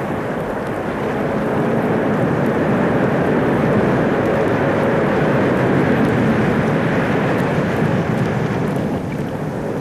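Ocean surf breaking on a beach: a steady rush of wave noise that swells a little through the middle and eases near the end.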